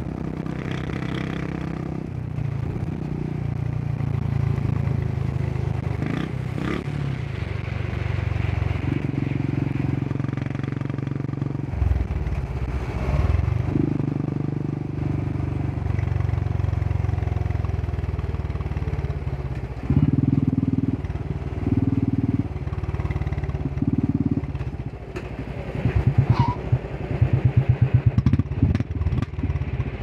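Royal Enfield Bullet 350's 346cc single-cylinder air-cooled engine running on the move, its note rising and falling with several brief dips. Near the end it drops to slow, separate exhaust beats.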